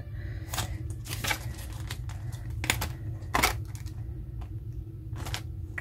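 Paper cash envelopes and banknotes being handled: a few scattered light rustles and clicks over a low steady hum.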